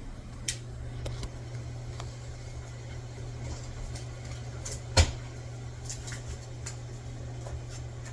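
Kitchen handling sounds: scattered light clicks and one sharp knock about five seconds in, over a steady low hum.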